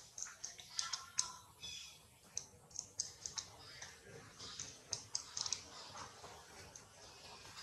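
Irregular sharp clicks and ticks, faint and high-pitched, coming in small clusters over a quiet background.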